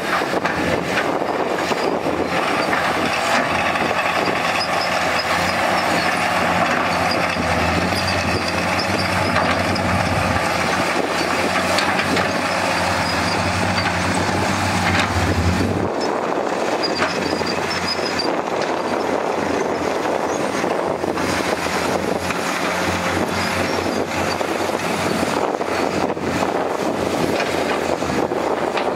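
Komatsu PC210 hydraulic excavator's diesel engine running steadily under load as it digs, with other heavy earthmoving machinery working close by and scattered knocks and clanks. The deepest part of the engine note drops away a little past halfway.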